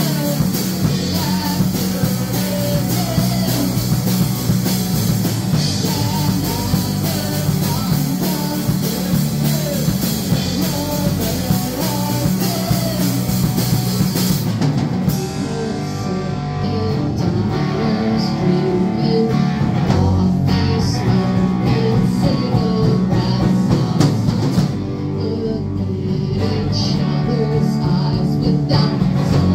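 A rock band playing, with electric guitar and drum kit and some singing. The cymbals drop out about halfway through while the guitar and bass carry on.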